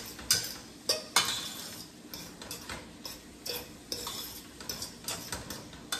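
Metal spoon scraping and clinking against a stainless steel pot while stirring cooked ground meat and sausage together, in irregular strokes.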